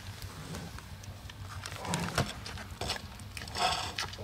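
Giant panda chewing a crumbly yellow food cake up close: wet smacking and crackling bites, with a louder patch about three and a half seconds in.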